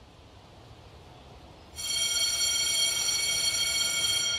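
A low rumble, then a sudden, steady high ringing tone with many overtones about two seconds in, held until near the end.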